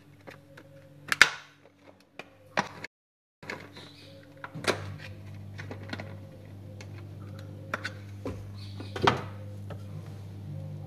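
Sharp knocks and clunks of objects being handled and set down while a desk is tidied, the loudest about a second in and another strong one about nine seconds in, over a steady low electrical hum that grows louder about halfway through. The sound drops out completely for a moment about three seconds in.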